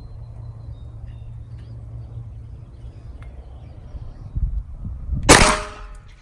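A single gunshot from a Glock 43X 9mm pistol about five seconds in, a sharp crack with a short ringing tail.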